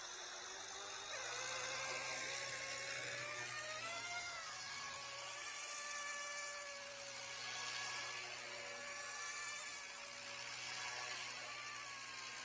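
Whine of a small electric R/C model's brushless motors, its several tones wandering up and down in pitch with the throttle.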